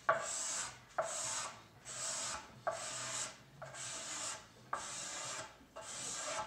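Steel card scraper pushed in repeated strokes across a hardwood board, a raspy scrape about once a second, each stroke starting with a sharp catch as the burr bites. It is taking fine shavings off the end of the board to remove drum-sander mill marks.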